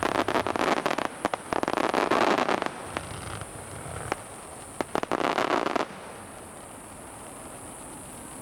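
Fireworks bursting in rapid crackling volleys, three dense clusters with a few single sharp cracks between them. They die away about six seconds in.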